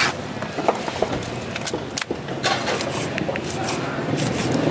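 A broad knife chopping and slicing fish on a heavy chopping block: scattered sharp knocks of the blade striking the block, with scrapes as it cuts along the fillet.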